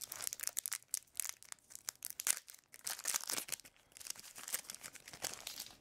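Foil wrapper of a Magic: The Gathering booster pack being torn open and peeled back by hand, crinkling with quick, irregular crackles.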